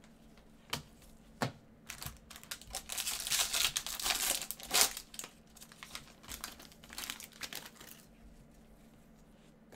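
Foil wrapper of a 2019 Bowman trading-card pack being torn open and crinkled in gloved hands: a couple of sharp clicks in the first second or so, then several seconds of crinkling, loudest around the middle.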